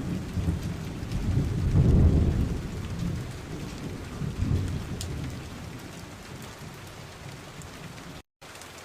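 Steady rain falling, with low rumbling swells about two seconds in and again around four and a half seconds, then easing; the sound drops out for a moment near the end.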